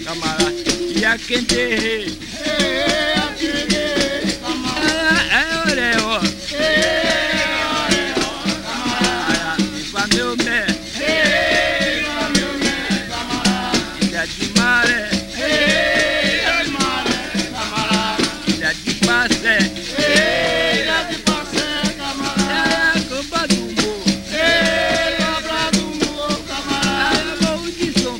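Capoeira music: the caxixi basket rattle shakes in a steady rhythm alongside the berimbau, with a melodic line bending up and down over a steady low tone.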